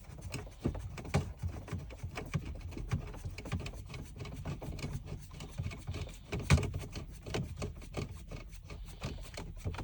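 Hands handling parts and wiring in a car's dashboard opening: rubbing with irregular small clicks and knocks, the loudest knock about six and a half seconds in.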